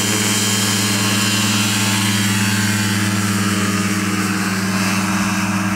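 Motorised hang-glider trike's engine driving its pusher propeller, a steady drone through the takeoff run and liftoff.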